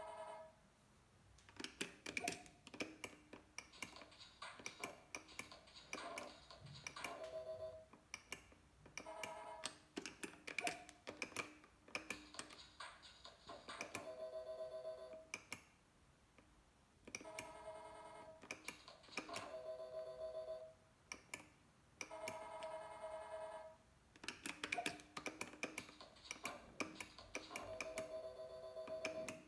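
Electronic sounds of a video slot machine being played: stretches of rapid ticking and blips as the reels spin, alternating with short steady beeping jingles, again and again.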